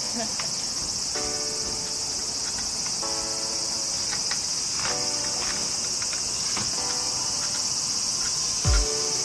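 A dense, steady, high-pitched chorus of insects. Near the end come a couple of sharp thumps as a trials bike's wheels land on a concrete block.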